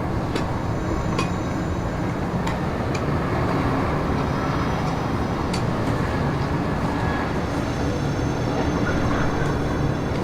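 Steady low rumbling noise with faint scattered clicks, like a storm soundscape.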